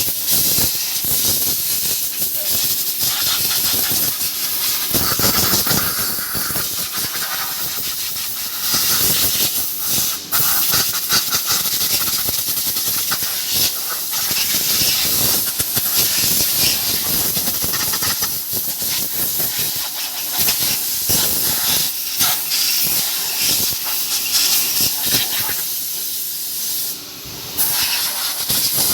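Compressed-air blow gun hissing in long, uneven blasts, blowing brake dust and dirt out of the car's brakes. There is a short drop in the hiss near the end.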